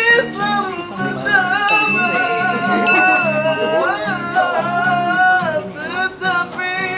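A singer's voice carrying a melody over acoustic guitar accompaniment, the sung notes gliding and bending between pitches.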